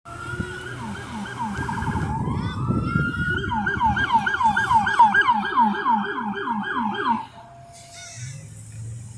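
Police car siren sounding a rapid yelp of falling sweeps, about four a second, with a single rising wail about two seconds in; it cuts off suddenly about seven seconds in.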